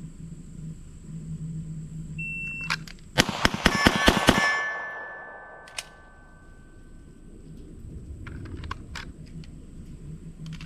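A shot-timer start beep, then a rapid string of about six or seven pistol shots in about a second, with steel targets clanging and ringing out afterward.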